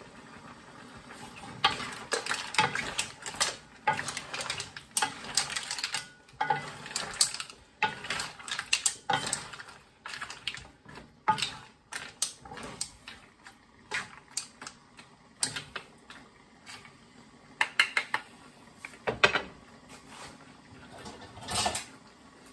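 Wooden spatula stirring mussels in their shells around a wok, with shells and spatula clattering against the pan in quick, irregular knocks. The knocking starts about a second and a half in and stops shortly before the end.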